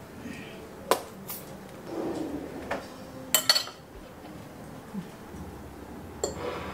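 Clinks and knocks of a ceramic plate being handled on a table: about five separate sharp clicks spread over the seconds, the loudest a quick cluster about three and a half seconds in, with a soft scrape about two seconds in.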